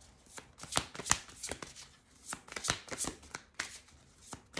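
A deck of oracle cards being shuffled by hand: a run of irregular, crisp card snaps and slaps, a few each second.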